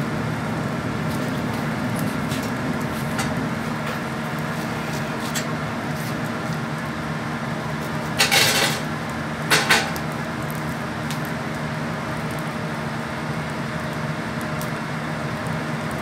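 A fire burns in the open firebox of a solid-fuel steam boiler, crackling faintly over a steady machine hum. Two short, loud clatters come about eight and nine and a half seconds in.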